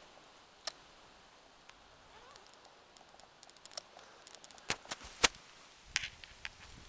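Handling noise as a backpack is taken off with the camera held close: scattered light clicks and rustles, with a few sharp knocks close together about five seconds in.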